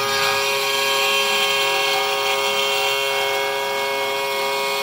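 Pocket NC V2 desktop five-axis mill cutting a swarf toolpath: a steady, kinda loud spindle whine with the end mill cutting along the side of the workpiece.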